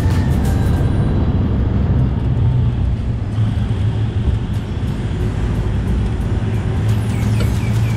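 A vehicle driving along a road: steady low engine and road rumble.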